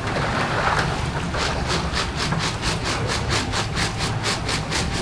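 Wire skimmer working through a large pan of frying tulumba dough, scraping and rattling in rapid, even strokes about five a second from a little over a second in, over a steady low hum.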